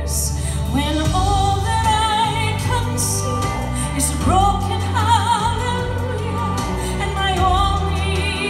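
A woman singing a slow song live into a microphone, long held notes with vibrato, over an accompaniment of sustained low chords.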